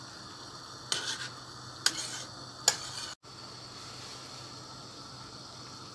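Red spiced sherbet boiling in a stainless steel pot, a steady bubbling hiss, with three sharp clicks in the first three seconds. The sound drops out for an instant a little past halfway, then the boiling goes on.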